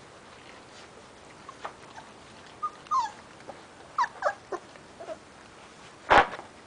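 Young Sarplaninac puppies, about 25 days old, giving a string of short whimpers and yelps as they jostle one another, with one loud, sharp sound near the end.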